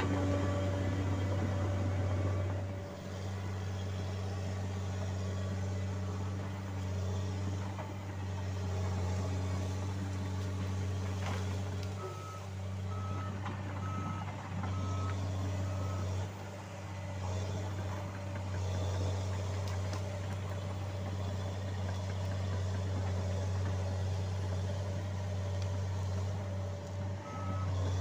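John Deere 750J-II crawler dozer's diesel engine running steadily as it works. Its backup alarm beeps in a short even run about twelve seconds in, and again near the end.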